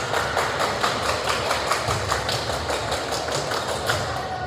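Rapid, fairly even run of sharp smacking impacts, about five a second, that fades out near the end.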